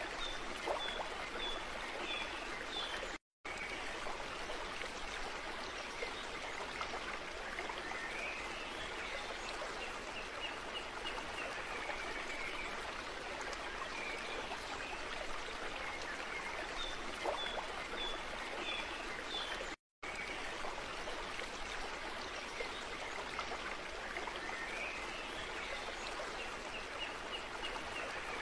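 Steady running water, like a stream, with short high chirps over it. The bed cuts out briefly twice, about 3 seconds in and again near 20 seconds, and the same stretch of sound repeats, as a looped ambience track does.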